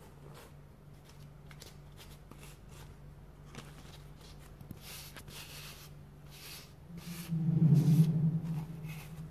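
Tissue paper rustling and crinkling as it is handled and pressed onto a glue-wet plastic box, in short scattered rustles, over a steady low hum. A louder, brief low rumble comes about three quarters of the way through.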